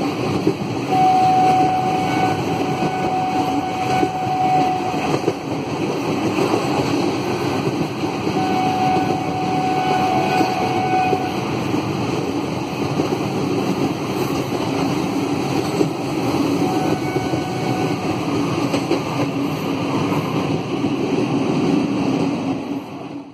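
Train running on the rails, heard from on board: a steady running noise with a high, steady whistling tone that comes and goes a few times. It fades out in the last second.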